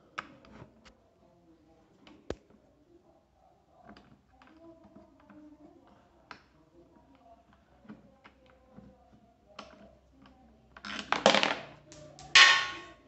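Light clicks and taps of a hex key working the screws of a Voltz EV1's plastic front panel, with two louder scraping, handling noises near the end.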